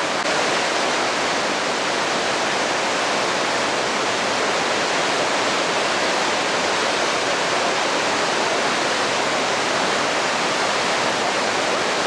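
The Rhine Falls, a broad river waterfall, pouring over rocks: a steady, unbroken rush of crashing water.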